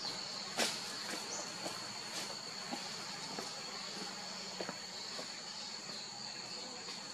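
Steady high-pitched insect drone, one unbroken tone, with a few faint knocks and snaps, the clearest about half a second in, as someone walks past.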